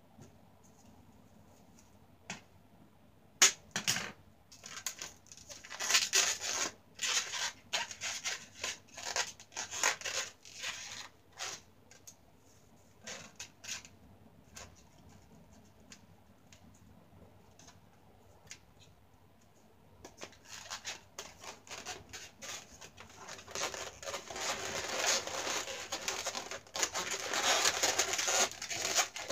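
Latex modelling balloons being rubbed and twisted by hand: irregular scratchy rubbing and squeaking of the latex. It comes in bursts with a quieter stretch midway and is busiest near the end.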